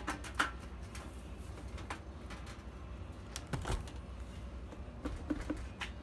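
Scattered light clicks and knocks of galvanized sheet metal being handled and folded with a hand cheek bender at the brake, with a brief creak a little past halfway. A steady low hum runs underneath.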